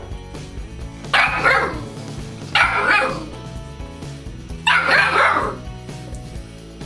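Golden retriever puppy barking three times, roughly a second and a half apart, each bark starting sharply and sliding down in pitch, over background music.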